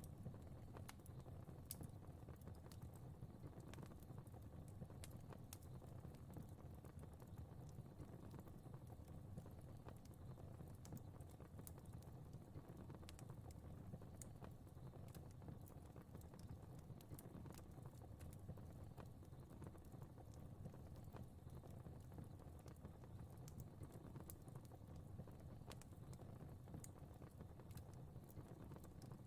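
Fire crackling faintly: scattered, irregular sharp pops and snaps over a steady low rumble of burning.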